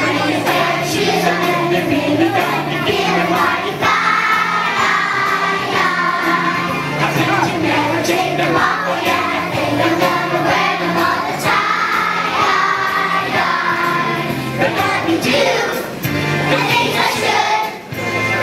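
A group of young children singing a song together over a musical accompaniment, with a short break near the end.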